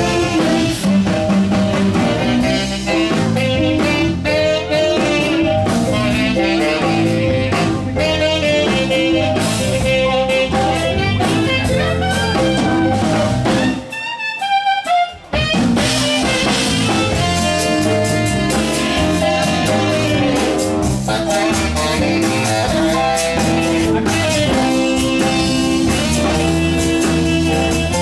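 Live blues band playing: drum kit, electric bass, keyboards and saxophones with a hand drum. About fourteen seconds in, the band stops for a beat while a single line glides downward, then the full band comes back in.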